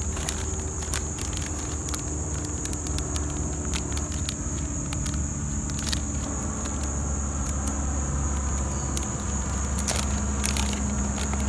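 Plastic lure packaging and cardboard being handled, with scattered crinkles and clicks, over a steady high drone of crickets and a steady low rumble.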